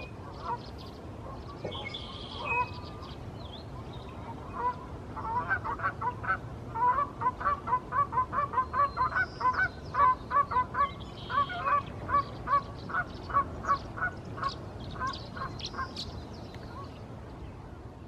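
A goose honking in a long, rapid, even series, about three honks a second. The honks begin about five seconds in and stop shortly before the end. A few faint high chirps come before the honking.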